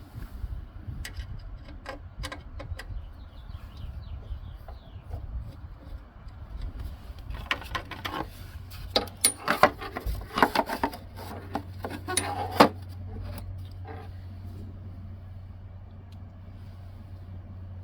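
Clinks, clanks and rattles of hand tools and metal mower parts being handled while the self-propelled drive belt is taken off, busiest and loudest in the middle stretch, over a low steady rumble.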